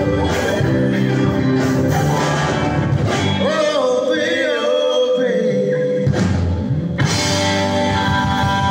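Live gospel band: male vocals over electric guitar, bass, keyboard and drum kit. For a couple of seconds around the middle the bass and drums drop out, leaving a held, wavering melody line, then the full band comes back in.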